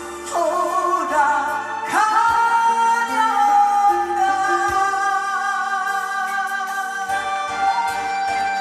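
A Korean song sung live into a microphone over a backing track, the singer's voice worn from a long run of performances. The melody slides through ornamented turns, then one long held note from about two seconds in to about seven seconds in.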